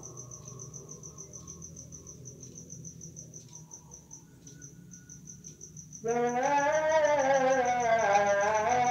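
Crickets chirping in a fast, steady pulse over a low hum. About six seconds in, a man's voice comes in loudly, chanting the pre-dawn tarhim through the mosque loudspeaker in long, wavering notes.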